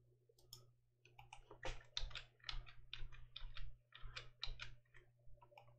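Computer keyboard keys clacking in a quick, irregular run of presses, about four a second, as Ctrl+Z is pressed over and over to undo, over a faint steady low hum.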